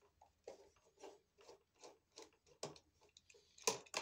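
Faint, even clicks and taps of hands working a wall outlet and its copper wires, about two a second, with a louder knock near the end.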